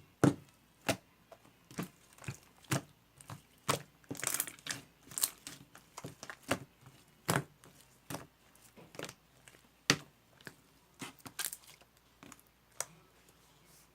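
Scattered single clicks and taps, irregularly spaced about a second apart, with a short crinkly rustle about four to five seconds in.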